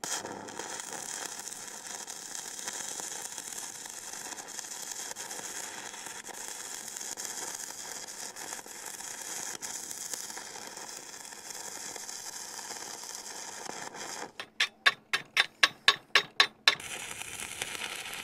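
Stick welder's arc burning on a steel plate with a steady hiss and crackle. About fourteen seconds in it breaks into a run of about a dozen loud pulses, roughly five a second, before the steady crackle returns.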